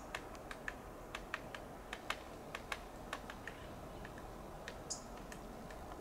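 Nuttall's woodpecker tapping and pecking at coast live oak bark while foraging: sharp, unevenly spaced taps, about three a second. A single short high chip comes about five seconds in.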